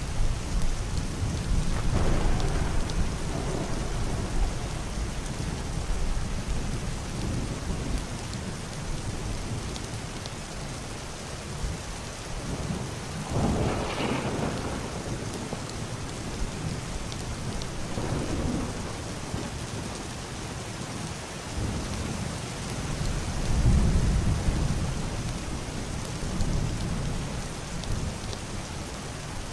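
Heavy rain pattering steadily on a roof and window, with distant thunder rumbling and swelling several times. The brightest, sharpest peal comes about halfway through, and a deep rumble swells again near the end.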